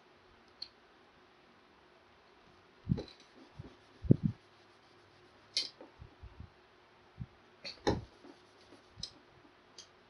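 Irregular knocks and clicks of a whiteboard and marker being handled while part of a drawing is wiped off, a cluster of low thumps about three to four seconds in and a few sharper clicks later.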